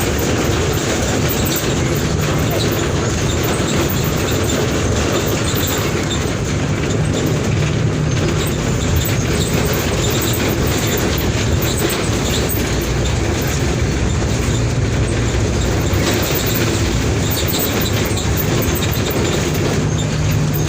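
Diesel engine of a 2011 Mercedes-Benz OF 1722M bus running steadily. The engine's low hum swells and fades a few times over a constant rumble.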